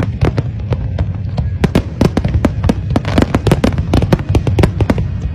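Aerial fireworks display: a rapid, irregular run of bangs and crackles, several a second, over a steady low rumble.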